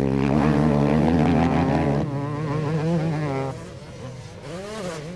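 250cc motocross bike engines revving hard, pitch rising and falling with the throttle as the bikes run the track, then quieter from about three and a half seconds in as they move away.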